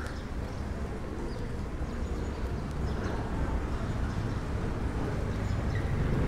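Low, steady rumble of motor traffic, growing gradually louder.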